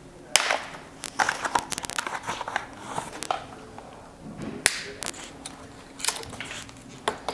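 Zip ties being snipped with cutters and plastic and foam packaging on a bicycle's handlebar crinkling and rustling as it is handled. There are sharp snaps, the loudest about half a second in and just before five seconds, among bursts of rustling.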